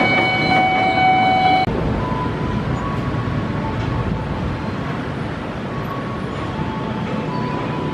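Commuter electric train at a level crossing: a long steady horn note cuts off about a second and a half in, followed by a steady rumble of train and road traffic.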